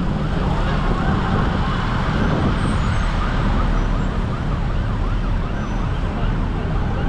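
Several sirens wailing at once, their pitch sweeping up and down about twice a second, over a steady rumble of road traffic.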